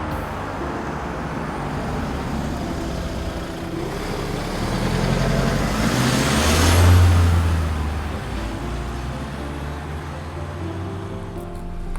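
Renault Master IV 2.3 dCi four-cylinder diesel van driving past: engine and tyre noise build up, peak about seven seconds in with a falling pitch as it passes, then recede.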